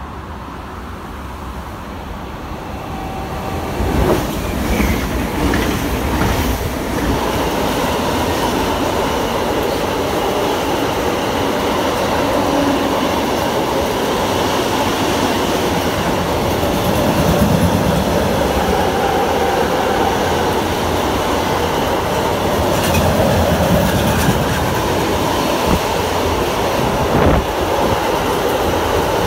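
Freight train of double-deck car-carrier wagons approaching and then running past close by. A rumble rises over the first four seconds, then settles into a steady, loud rush of wheels on rail, broken by scattered clacks.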